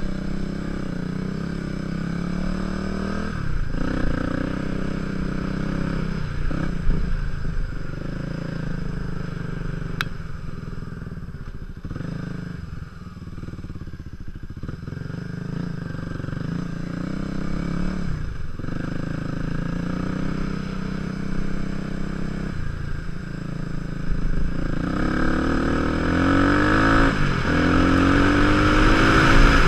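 Single-cylinder supermoto motorcycle engine heard from the rider's helmet, revving and easing off again and again over a rutted dirt track. Near the end it accelerates harder, rising in pitch, with wind noise growing louder.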